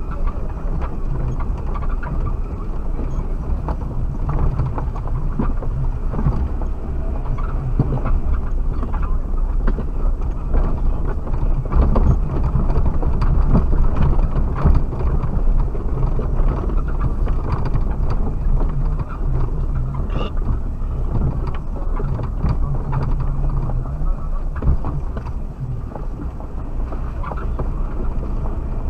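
Suzuki Jimny driving off-road, heard from inside the cab. The engine runs steadily, rising and falling a little, under a jumble of small knocks and rattles from the rough ground.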